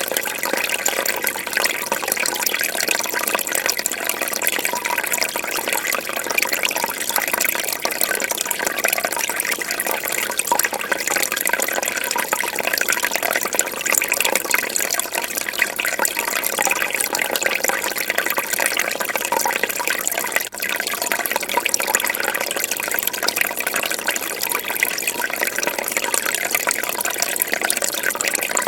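Fish-tank water bubbling and trickling steadily, a dense run of small pops and splashes, with a momentary drop in level about twenty seconds in.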